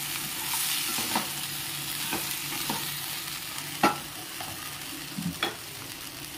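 Raw mango pieces cooking with jaggery in oil in a pan, with a steady sizzle. A few sharp clicks sound against the pan, as the mixture is stirred.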